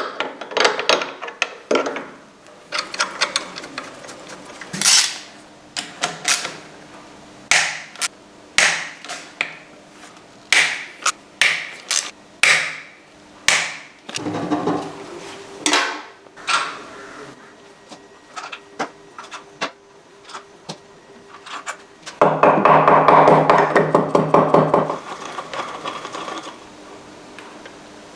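Repeated sharp hammer knocks and clanks on metal parts during a motorcycle rear suspension strip-down, irregularly spaced, with a little ringing after some of them. About 22 seconds in comes a loud, rapid rattle lasting about three seconds.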